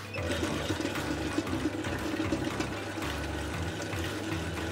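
Planetary stand mixer running steadily, its beater whipping softened butter and sugar in a stainless steel bowl, as beaten eggs are poured in.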